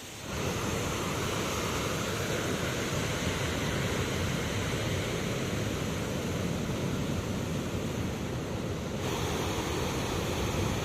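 Rough sea surging: a steady rush of surf and breaking waves.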